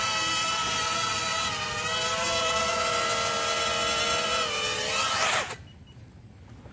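Small FPV quadcopter's motors and propellers whining steadily as it hovers. About five seconds in the pitch falls and the motors cut off as the quad sets down on the ground.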